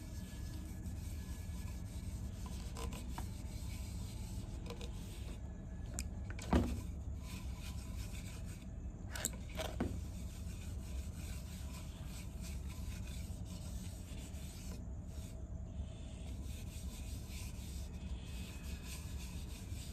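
A cloth rubbing oil finish onto a freshly sanded ash bowl, a steady soft rubbing of cloth on wood over a low steady hum. There are a couple of brief knocks, the loudest about a third of the way in.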